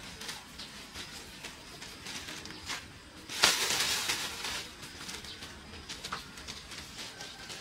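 A sudden hissing rush about three and a half seconds in, dying away over about a second, among scattered small clicks and knocks.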